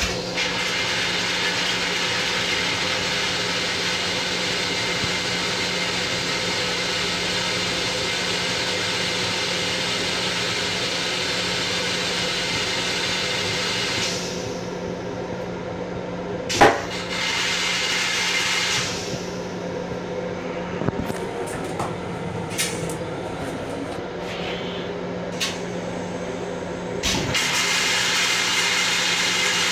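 Running noise of an M7 electric commuter railcar under way, heard from inside its restroom: a steady rushing noise over a constant low hum. About halfway through the rushing drops away suddenly, a single sharp bang follows a few seconds later, then scattered clicks and knocks, and the rushing comes back near the end.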